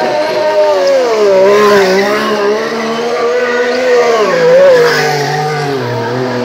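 Ferrari Formula 1 car's turbocharged V6 engine revving up and down while it spins doughnuts, with the rear tyres spinning and screeching.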